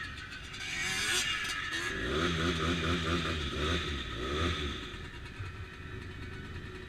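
ATV engine revving in repeated rising and falling surges as the hung-up quad tries to drive free, then settling to a steadier, lower run about five seconds in.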